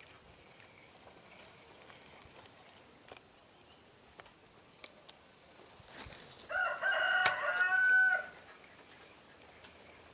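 A rooster crowing once, a single call of about two seconds ending on a held note. A few faint sharp clicks come before it.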